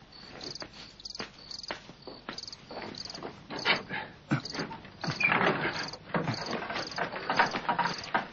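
Crickets chirping steadily at night, about two chirps a second. From about three and a half seconds in, a run of irregular knocks and rustling, louder than the crickets, joins them.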